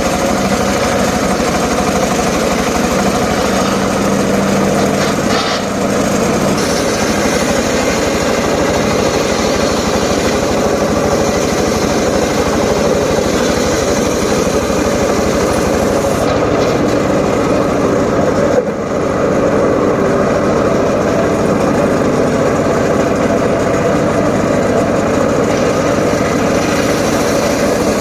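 Engine of a homemade circular saw rig running steadily, with one brief knock about two-thirds of the way through.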